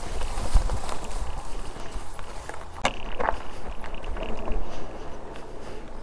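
Yadea Trooper 01 fat-tire electric bike riding over rough ground: a low rumble with scattered knocks and rattles, the sharpest about three seconds in.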